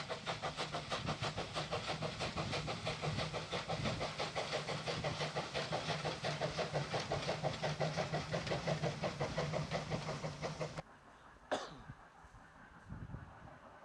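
Two saddle-tank steam locomotives coupled together, chuffing steadily in a rapid, even rhythm of exhaust beats. The chuffing cuts off sharply about eleven seconds in, leaving a much quieter background with one brief high sound.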